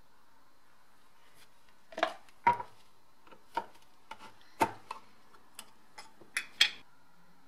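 Metal paint tin being pried open with a flat tool: a string of sharp clicks and knocks as the lid is levered round its rim and lifted off.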